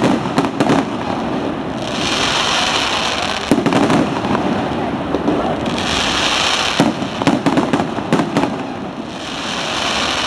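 Fireworks display going off: a run of sharp bangs and crackles, with a high hissing crackle that swells up every few seconds.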